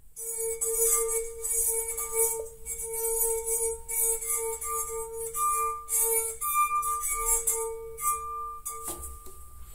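Wine glass a quarter filled with water singing as a wet finger rubs around its rim. One steady ringing tone swells and fades as the finger circles, with fainter higher tones above it.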